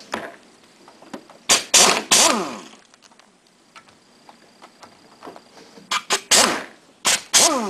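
Handheld pneumatic air gun with a number three Phillips bit spinning out the end-plate screws of an air motor in short bursts. Each burst ends in a falling whine as the tool winds down. One cluster of bursts comes about a second and a half in, and another near the end.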